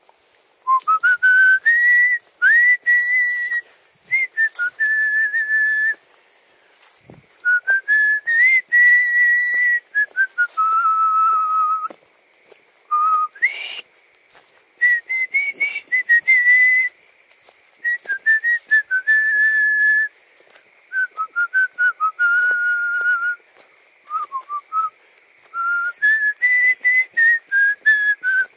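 A person whistling a tune: one clear note stepping up and down between held pitches, in phrases broken by short pauses.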